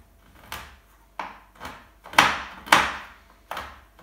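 Knife chopping dark chocolate into coarse pieces on a cutting board: about seven sharp knocks of the blade against the board at uneven spacing, the two loudest a little past two seconds in.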